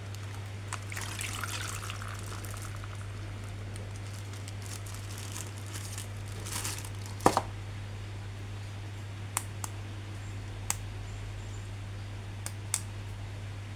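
Quiet handling sounds: soft rustling and several sharp clicks, over a steady low hum.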